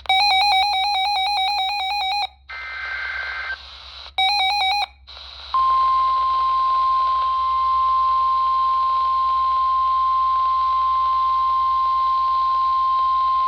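NOAA Weather Radio alert heard through a weather radio's speaker: two loud bursts of buzzing digital SAME header data with a quieter stretch between them, then the steady 1050 Hz warning alarm tone starting about five seconds in.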